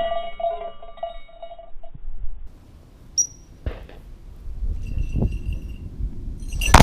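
A Harris hawk's wings sweep close over the microphone with a rush of air and low rumble, while steady ringing tones sound for the first two seconds. A few light clicks follow, and a single sharp, loud knock comes near the end.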